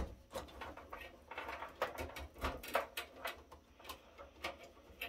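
Hands handling cables and parts inside an open rackmount server case: light, irregular clicks and rustling of wires and connectors against the metal chassis.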